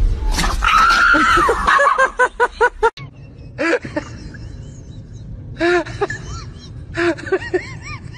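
Dogs yelping and whining. First comes a high drawn-out cry that falls away, then a run of quick yelps. After an abrupt cut about three seconds in, a dog gives short rising-and-falling whines in bursts of several, over a low hum.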